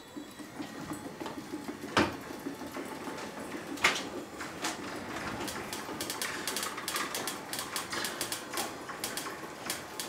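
Ryobi One+ 18-volt battery garage door opener running the door down, on a 1.5 amp-hour battery: a low, steady mechanical run with sharp clicks about two and four seconds in, and quick rattling clicks through the second half. On the small battery the motor is struggling a little and moves the door slower.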